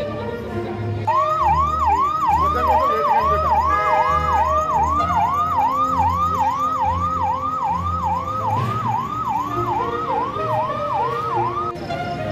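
A siren sounding a fast yelp, about two rising-and-falling sweeps a second, over background music with a steady low beat. The siren starts about a second in and stops near the end.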